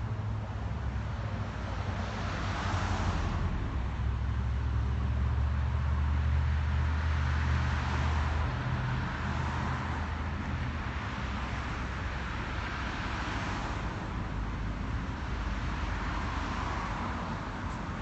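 Road traffic: about four cars pass one after another, their tyre noise swelling and fading, over a steady low rumble that eases about halfway through.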